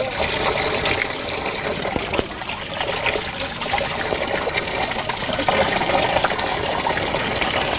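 Spring water pouring steadily from a bamboo pipe and splashing onto rocks below, with hands cupped in the stream catching and splashing it.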